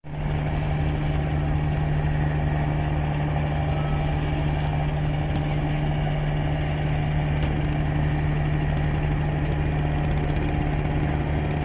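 Engine of a river passenger launch running steadily, a low unchanging drone with a strong hum.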